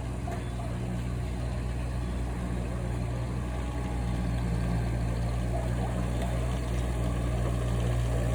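Diesel engine of heavy equipment running steadily with a low hum, growing slightly louder toward the end, as it works to lift a large section of oak trunk.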